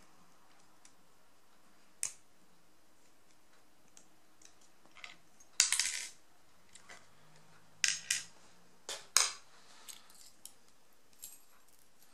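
Small metal clicks and clatters of an Ace padlock and its parts being handled and taken apart, a single click about two seconds in, the loudest rattle about six seconds in, and several sharp clicks around eight to nine seconds.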